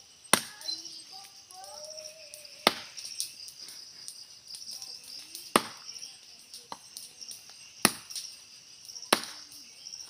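Machete blows chopping into the base of a small tree trunk: five sharp strikes at uneven gaps of one to three seconds. A steady high drone of insects runs underneath.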